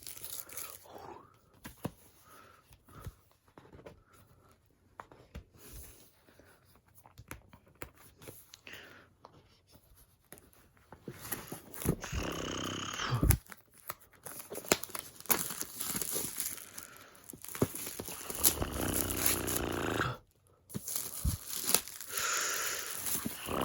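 Plastic shrink wrap being torn and pulled off a laptop box, crinkling. The first half has only faint handling with small taps. Stretches of tearing and crinkling follow in the second half.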